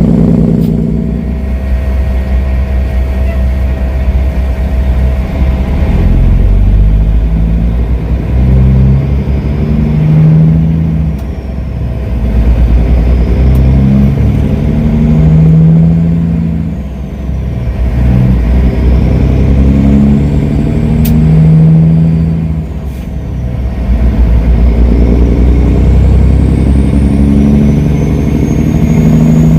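Kenworth W900L semi truck's diesel engine pulling hard from inside the cab, its pitch climbing in each gear and dropping back at each of several gear changes as the truck accelerates.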